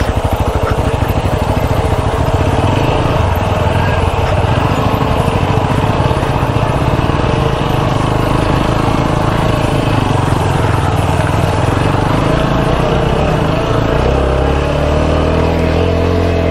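Motorcycle engine running steadily at low speed on a rough dirt track, heard from on the bike, with a rapid even pulse of engine firing under a low rumble.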